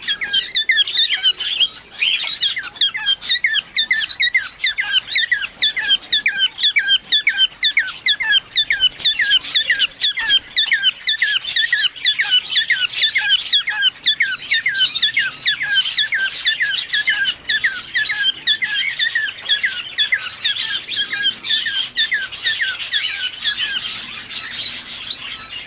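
A flock of small pet parrots in an aviary chirping and chattering without a break, many quick calls overlapping.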